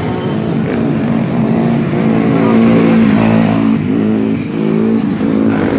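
Dirt bike engine revving, its pitch climbing and dropping several times, loudest about halfway through.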